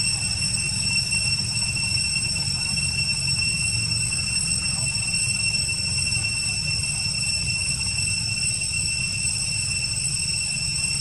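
Steady outdoor background noise: a constant high-pitched whine over a low rumble.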